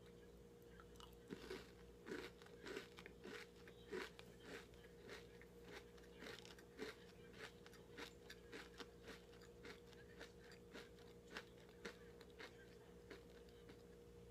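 Close-up chewing of a puffed-grain chocolate crunch bar: crisp, irregular crunches about two a second that grow fainter toward the end as the mouthful breaks down.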